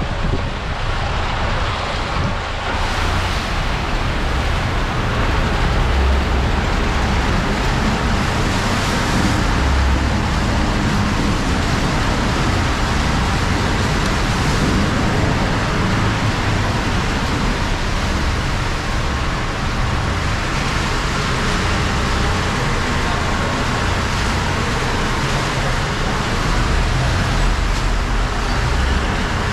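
Vehicle driving through a concrete tunnel over wet, muddy ground: a steady low rumble of engine and tyres under a constant hiss.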